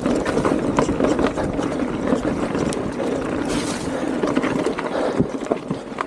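Mountain bike rolling fast over a wet dirt trail: steady tyre and rushing noise with frequent small rattles and knocks from the bike over the rough ground.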